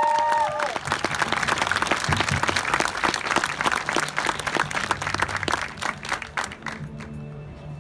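Crowd of people clapping and applauding, fading out near the end. A loud held tone with several pitches cuts off less than a second in.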